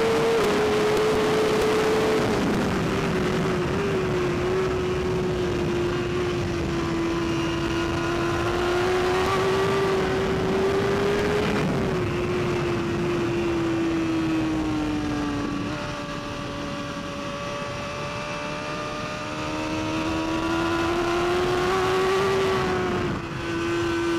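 BMW S1000RR inline-four superbike engine at high revs under hard riding, its note holding high and stepping down in pitch a few times as the rider shifts and rolls the throttle, over loud wind rush on the onboard microphone.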